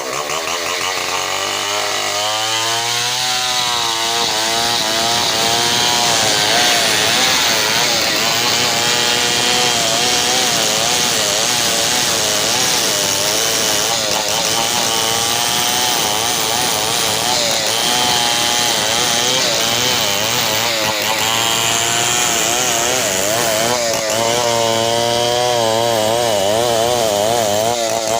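Large two-stroke chainsaw cutting through a hardwood log of ulin (ironwood). The revs climb over the first few seconds, then the engine pitch wavers up and down as the chain bites and the engine bogs and recovers in the cut.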